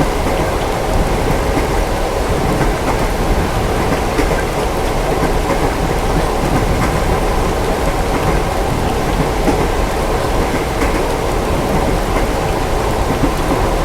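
Steady rain on a train window mixed with the low, even rumble of a train running on rails, with scattered raindrop ticks.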